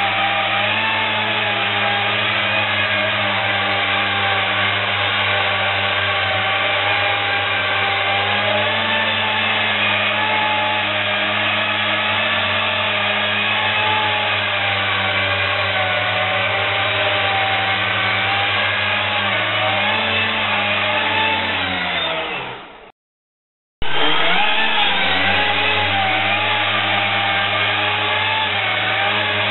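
Electric ducted lift fans of a Ryan XV-5A Vertifan RC VTOL model hovering, a loud steady whine of several tones that waver up and down. About 22 seconds in the whine slides down in pitch and drops to silence for under a second, then comes back suddenly at full strength.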